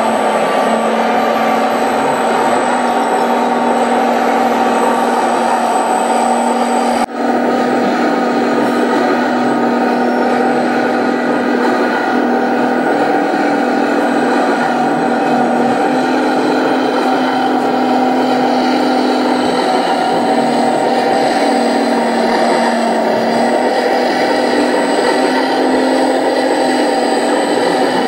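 Sound module of a 1/14-scale RC Komatsu D65 bulldozer playing a steady diesel engine sound through its speaker while the dozer works, with a short break about seven seconds in.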